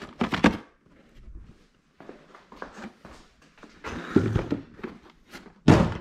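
Cardboard parts box being handled: flaps rustling and scraping, with scattered knocks, then a loud thunk a little before the end.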